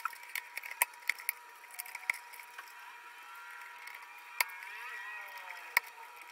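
Small plastic clicks, taps and scraping as wiring and the control board are handled inside an opened Zojirushi water boiler, with a few sharper clicks standing out and scratchy rubbing of wire on plastic around the middle. A faint steady high tone sits underneath.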